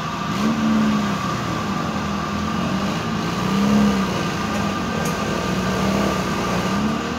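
Lada Niva's engine running under load, its pitch rising and falling slightly twice as the revs swell and ease.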